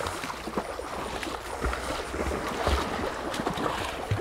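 Irregular splashing and sloshing of water as a person and two Labrador retrievers wade through a shallow, rocky creek.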